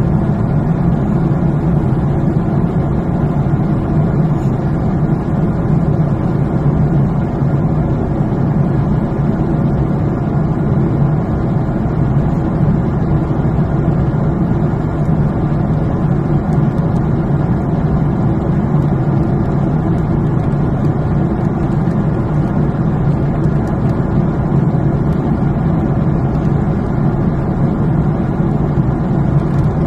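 Airliner cabin noise: the steady drone of jet engines and rushing air, even and unbroken, while the plane descends toward landing.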